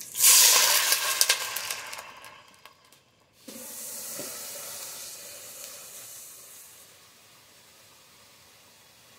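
Water poured from a cup into a hot stainless steel pot of browned chicken, loudly sizzling and hissing as it hits the pan. After a brief break, a softer steady hiss from the pot that fades away over a few seconds.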